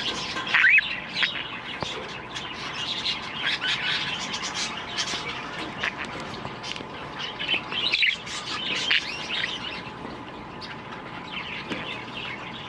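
A flock of pet budgerigars chirping and chattering together, a dense run of overlapping short calls with a few louder ones about a second in and again around eight seconds.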